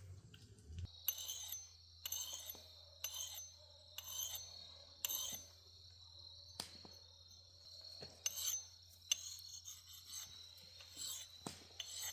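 Knife whittling a wooden stick: a series of short shaving scrapes, roughly one a second with a pause in the middle, over a faint steady high tone.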